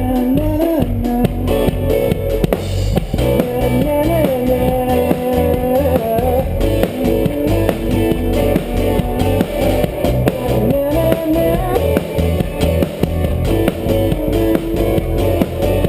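Live rock band playing: electric guitar with bending notes over bass and a drum kit keeping a steady beat.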